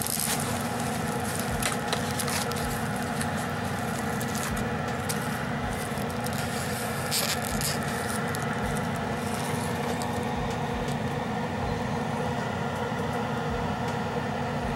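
Plastic packaging being handled: a zip-lock bag and bubble wrap rustle and crinkle in short scrapes and crackles as they are opened by hand. The handling thins out after about ten seconds, leaving a steady fan hum.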